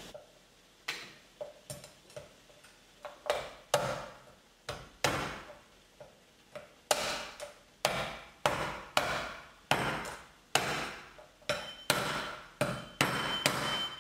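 Cleaver chopping lobster claw shell against a wooden cutting board: repeated sharp chops, scattered at first, then about two a second from the middle on.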